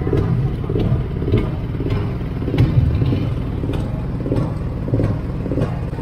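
Small tour boat's engine running with a steady low rumble and scattered clicks.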